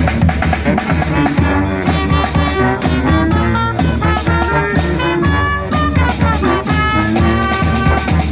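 Honk-style street brass band playing: horns carry held melody notes over a steady drum beat.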